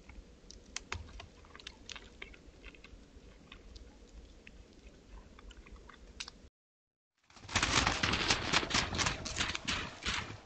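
White-tailed deer browsing twigs, its nibbling and chewing a faint scatter of small clicks and crunches. After a short cut-out about six and a half seconds in, several deer walk over snow, their hooves crunching in a loud, quick, irregular patter.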